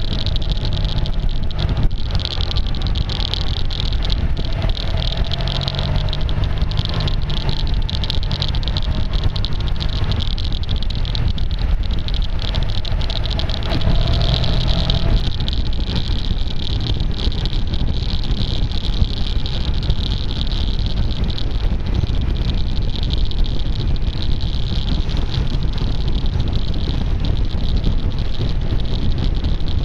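Maxi-scooter riding along a road, heard through a camera microphone covered with tape: a steady rush of engine and wind noise with a strange clicking running all through it, caused by the tape over the microphone.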